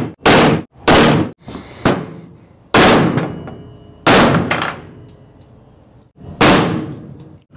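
A rubber mallet strikes a plastic driver set in a 12-valve Cummins vacuum pump housing, knocking out the old seal. There are six blows at uneven intervals, the third one lighter, and each leaves a short ringing decay.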